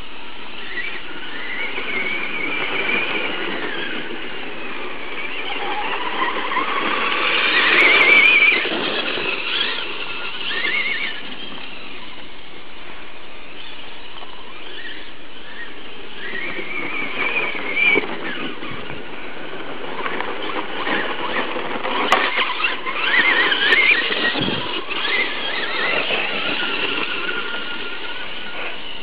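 Two Traxxas Stampede electric RC monster trucks, a brushless VXL and a brushed XL-5, whining at full throttle, their pitch rising and falling as they speed up, turn and pass. The loudest passes come about 8 seconds in and again from about 22 to 25 seconds, with a couple of sharp knocks among them.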